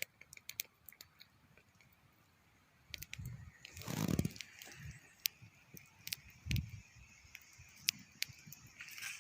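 Wood campfire crackling, with scattered sharp pops and snaps, and a brief louder rustle about four seconds in.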